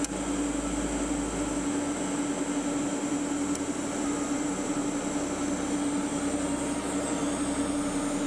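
TIG welding on thin stainless steel exhaust tubing: a steady electrical hum from the welder and arc, with a hiss underneath, unchanging throughout.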